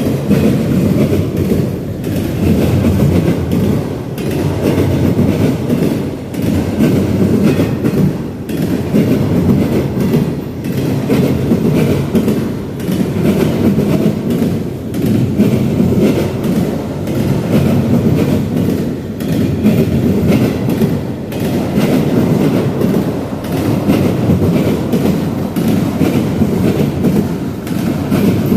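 A freight train rolling past, a steady rumble of railcar wheels on the rails with clickety-clack over the joints. The loudness swells and dips roughly every two seconds as car after car goes by.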